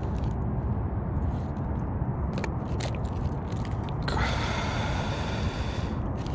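Hands rummaging through a soft tackle bag of bait jars and lures: scattered clicks and scrapes of plastic jars and gear over a steady low rumble. A hiss comes in about four seconds in.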